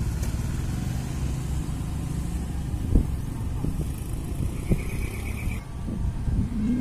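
Road vehicle engine running by on the road beside the railway crossing, a steady low rumble, with a few sharp knocks, the loudest about three seconds in.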